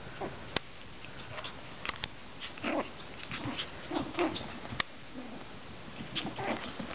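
Five-week-old Maltese puppies play-fighting, giving short, scattered yips, with a few sharp clicks among them.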